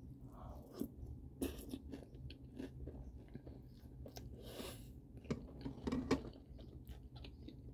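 A person chewing a mouthful of Trix cereal, with soft, irregular crunches.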